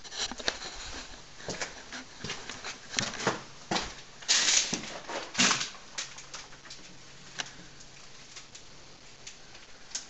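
Irregular knocks and clicks of someone moving about on an old wooden floor with a handheld camera, with two loud rustling scrapes about four and five and a half seconds in.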